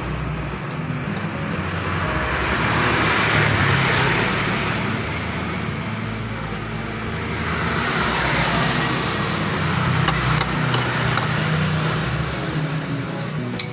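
Motor-vehicle engine noise that swells about four seconds in and again from about eight to eleven seconds.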